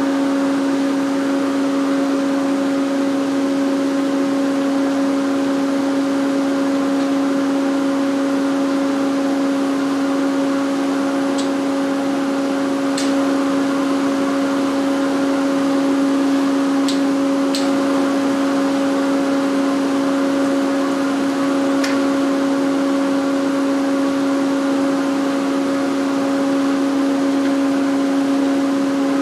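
Steady hum of a running woodshop machine, one strong low tone with a fainter one an octave above, unchanging throughout. A few light clicks and taps come in the middle as a power feeder is positioned on the shaper table.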